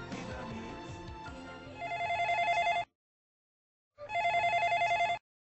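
Background music gives way to an electronic desk telephone ringing twice, each ring a fast warbling trill about a second long, with a silent pause between rings. This is an incoming call.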